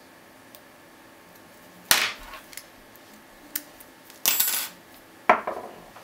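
Metal clicks and clinks from a Vachette Ajax 40 mm padlock and its lock picks as the picked lock comes open and is set down on a wooden table. There is a sharp ringing click about two seconds in, a brief rattle just after four seconds, and another ringing knock near the end.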